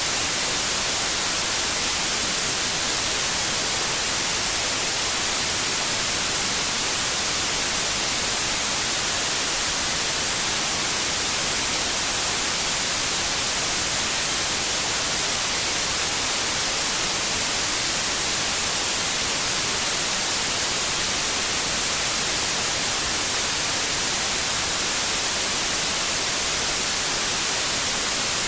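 Steady white noise: an even, unbroken hiss at constant level, with no pulses or changes, strongest in the upper frequencies.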